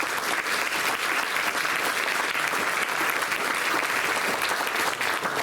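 Audience applauding steadily in a meeting room: many hands clapping at once.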